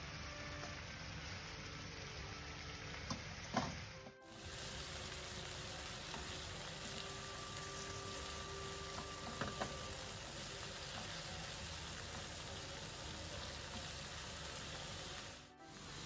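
Beef strips and broccoli sizzling in a soy-sauce gravy in a non-stick frying pan, tossed with wooden utensils that click against the pan a few times.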